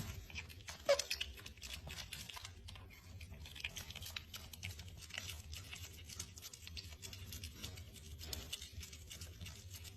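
Pet otter giving one short squeak about a second in, then faint, scattered scratching and tapping clicks.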